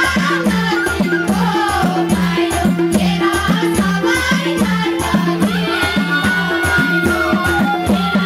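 Nepali folk dance music for rateuli: a fast, steady drum beat with shaken rattle-like percussion and a gliding melody line, ending in a long held high note in the second half.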